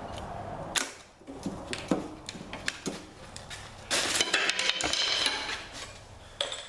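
Pry bar clanking and scraping against a 302 V8's cylinder head as it is pried loose from the block: a few sharp metal knocks, then a longer burst of rattling and scraping about four seconds in.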